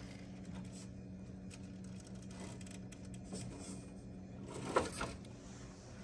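Axial SCX10 III electric RC rock crawler climbing slowly over rocks: a steady low motor-and-gear hum, with a brief louder scrape about five seconds in.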